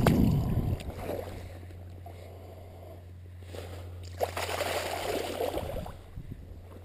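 Shallow creek water splashing as a trout is let go, loudest right at the start. A second stretch of sloshing follows about four seconds in as wading boots step through the shallows, over a steady low hum.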